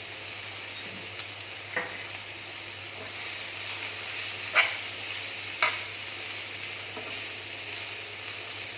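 Sliced onions and green chillies sizzling in hot oil in a pan, with a steady hiss, while a spatula stirs them and knocks sharply against the pan four times.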